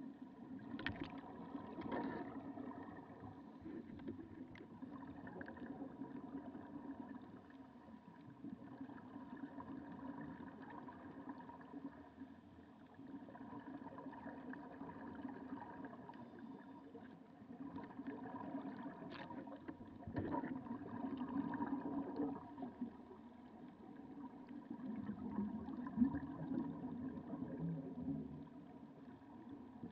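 Muffled underwater sound through a waterproof camera housing: a steady low hum, with swells of gurgling from divers exhaling bubbles through their regulators, strongest near the end.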